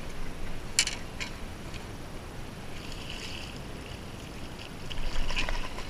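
Hooked largemouth bass splashing at the surface beside the boat while a landing net is dipped into the water to scoop it, with a few sharp clicks; the splashing is loudest about five seconds in.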